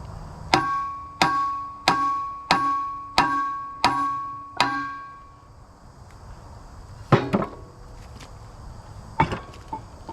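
Hammer striking steel: seven blows about one and a half per second, each ringing out with a clear metallic tone. A few seconds later come a sharp double knock and then one more knock.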